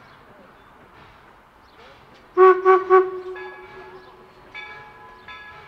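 Steam locomotive whistle sounding three short toots, followed by the locomotive's bell ringing.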